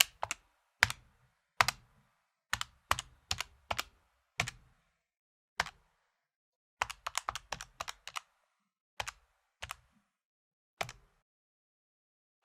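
Fingers tapping the buttons of an electronic calculator, sharp plastic key clicks, some single and some in quick runs, with pauses between, as when entering numbers.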